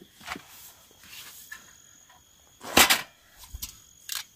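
Packets and bottles of cooking supplies being handled and pulled out of a bag: two brief, sharp rustles, the louder one about three seconds in, among small knocks. Insects trill faintly and steadily in the background.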